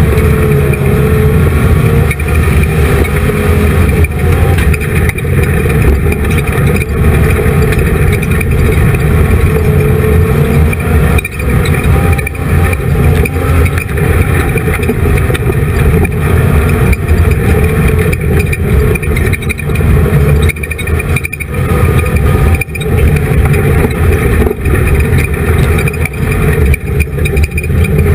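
Race car engine running hard at high revs, heard from inside the car, its pitch rising and falling with brief dips in level every few seconds as the throttle comes off and back on around a dirt oval.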